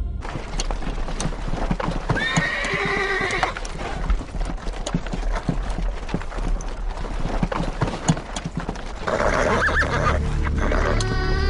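Horses' hooves clopping on dry ground at a walk, with a horse neighing about two seconds in and again near the end.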